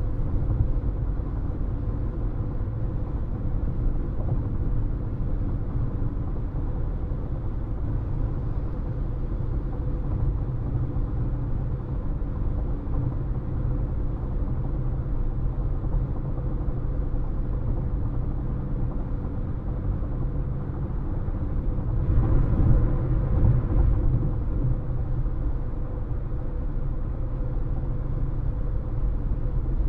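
A car driving at highway speed: a steady low rumble of tyre and road noise with a faint hum. There is a louder swell lasting about two seconds, a little past two-thirds of the way through.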